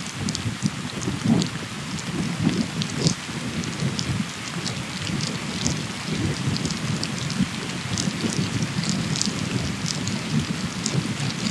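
Wind buffeting the camera microphone on a fast road-bike descent, an uneven rushing rumble with tyre noise on asphalt. Scattered light ticks run through it.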